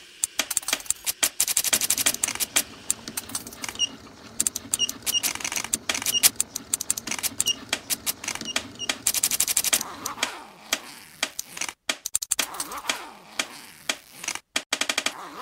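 Dense, rapid clicking and rattling, with a short high chirp repeating several times in the middle stretch.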